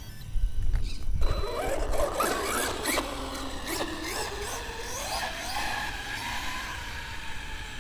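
Electric RC monster truck on a speed run, its motor and drivetrain whining, the pitch rising as it accelerates and then falling slowly away; a low wind rumble on the microphone at the start. The truck is a Pro-Line Pro-MT 4x4 on 4S with a 19-tooth pinion.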